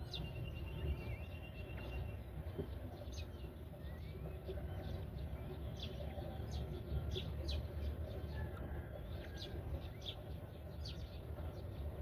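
Birds chirping: a held, wavering high note in the first two seconds, then many short, sharp, falling chirps repeated irregularly, over a steady low background rumble.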